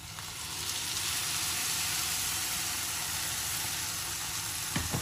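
Raw tomato purée poured into onions frying in hot ghee, setting off a loud, steady sizzle that swells within the first second and holds. A brief knock near the end.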